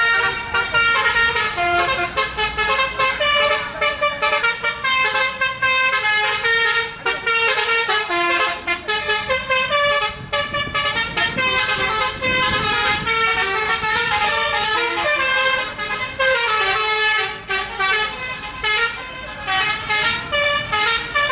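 Tour bus telolet horns playing melodic tunes: quick runs of short pitched notes, often several tones at once, going on without a break.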